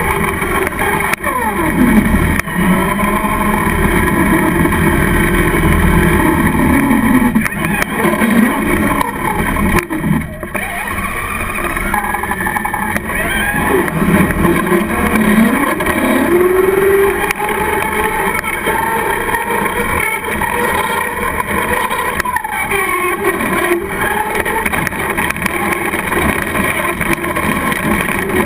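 Onboard sound of a Traxxas Slash RC short-course truck driving: its motor whine rises and falls again and again with the throttle, over a steady rushing noise from the tyres and the wind.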